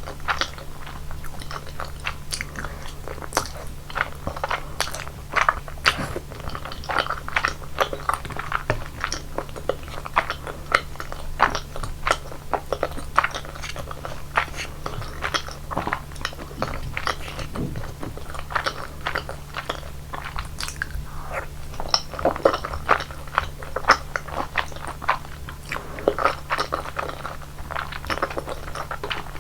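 Close-miked chewing of creamy rosé tteokbokki: a steady stream of short, wet, sticky mouth clicks and bites, irregular, several a second, over a faint steady low hum.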